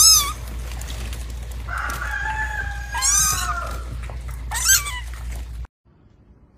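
Animal calls: short high-pitched cries falling sharply in pitch, heard three times, and a long crowing call of about two seconds in the middle, over a steady low hum. The sound cuts off suddenly near the end.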